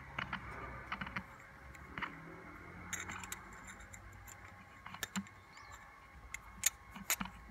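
Handling noise from a hand-held camera: faint, irregular light clicks and taps, with a few sharper ones in the second half.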